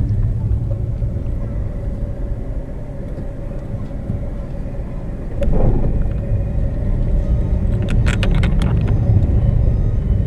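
Steady low rumble of road traffic and vehicle engines, heard from a moving vehicle, with a faint steady engine tone. About five and a half seconds in the sound suddenly swells louder, and a quick run of sharp clicks follows about eight seconds in.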